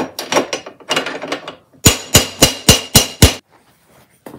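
Hammer blows on the mushroomed steel end of an old adjustable wrench, working the burr back in: a quick run of strikes, then six sharp, ringing metallic strikes at about three a second, and one more blow near the end.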